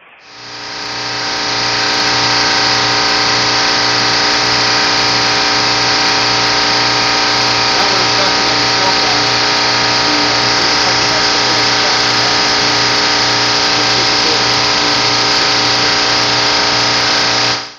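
Large chiller running in a mechanical room: loud, steady machinery noise with a low hum and many steady tones, rising in over about two seconds and then holding unchanged until it cuts off abruptly.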